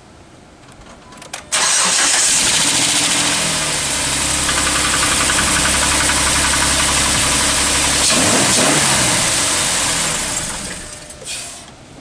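2010 Jeep Wrangler's 3.8 L V6 cold-started after sitting overnight: it catches suddenly about a second and a half in and runs for about eight seconds before dying away, with the brief start-up engine knock of the first seconds. The owner thinks the knock comes from oil draining back past the oil filter's bleed-back valve overnight.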